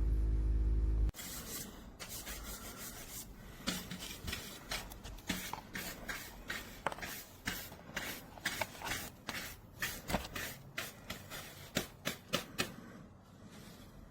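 Handling noise: hands rubbing and knocking against the recording device or the gear in front of it, with many irregular short clicks and rustles that die away near the end. A loud steady low hum in the first second cuts off suddenly.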